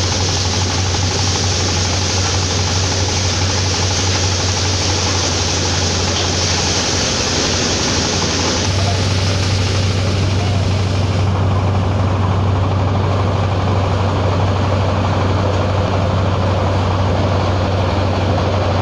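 Engine-driven crop threshing machine running steadily as plants are fed into it, a continuous loud drone with a low hum under a dense threshing hiss. The upper hiss thins out about a third of the way through while the hum carries on.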